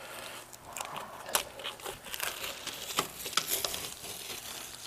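Painter's tape being peeled slowly off the edge of a freshly plastered board: an irregular run of crackles and crinkles as the tape pulls free.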